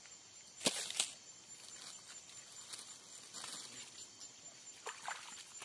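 Light handling noises: two sharp clicks or knocks a little under a second in, then softer ticks and rustling. Under them runs a steady, high-pitched insect trill, like crickets.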